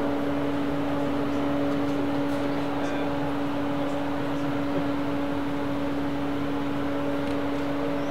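Rolls-Royce Boat Tail standing still and running, giving a steady, even hum with one constant tone.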